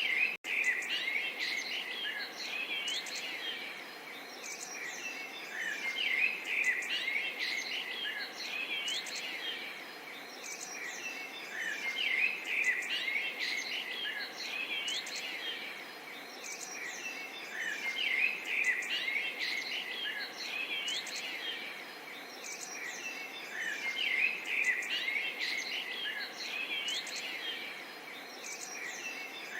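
A chorus of small songbirds chirping and trilling continuously, several at once, over a soft steady murmur of running water. The sound cuts out for an instant about half a second in.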